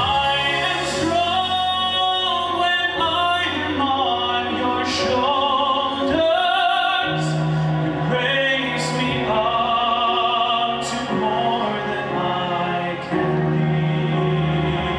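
A man singing in a classical, operatic style into a handheld microphone, holding long notes with vibrato over amplified instrumental accompaniment.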